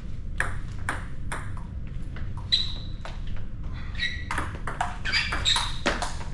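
Table tennis rally: the ball clicking back and forth off bats and table, a few strikes at first and then a quicker run of hits in the second half.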